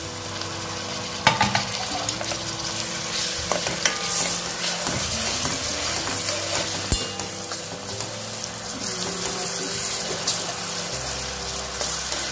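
Chopped onion and tomato sizzling in hot oil in a metal kadhai while a steel ladle stirs them, scraping against the pan, with one sharp knock of the ladle about a second in.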